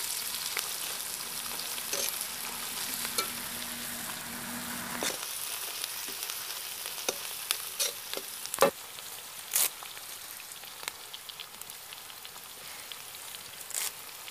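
Sliced onions and dried red chillies sizzling steadily in oil in a large metal kadai. A perforated metal ladle scrapes and knocks against the pan every second or so as it stirs.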